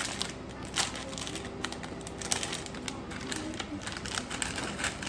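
Plastic food packet crinkling as it is torn open and handled by hand: irregular sharp crackles, the loudest about a second in and again a little past two seconds.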